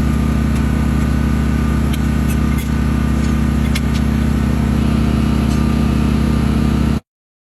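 An engine running steadily at an unchanging pitch, with a few faint ticks over it; the sound cuts off abruptly about seven seconds in.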